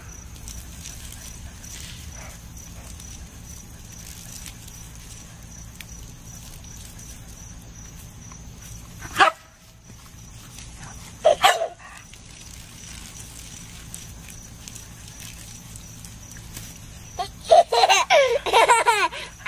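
A collie-type dog barking in short, sharp bursts while it snaps at a garden hose's spray: once about nine seconds in, then twice in quick succession. Near the end a toddler laughs in a long run.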